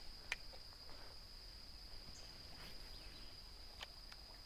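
Steady high-pitched trilling of insects in a summer chorus, with a few sharp clicks: one loud click about a third of a second in and two softer ones near the end.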